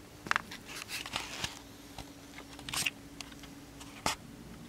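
Scattered light clicks and short rustles of handling noise, over a faint steady hum.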